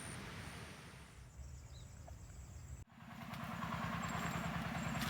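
A motor engine running with a rhythmic low throb and a rush of wind-like noise; it breaks off for an instant just past halfway and comes back louder and steadier.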